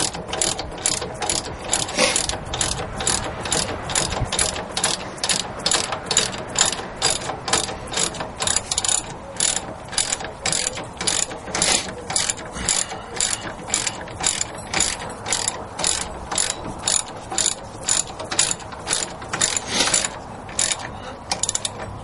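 Socket ratchet clicking in quick, regular strokes, about two a second, as a brake assembly bolt is tightened; it stops shortly before the end.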